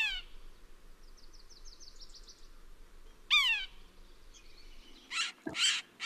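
Recorded red-breasted sapsucker calls: two loud, nasal, downward-sliding squeals about three seconds apart, with a faint, quick series of high notes between them. A few louder, rougher sounds follow near the end.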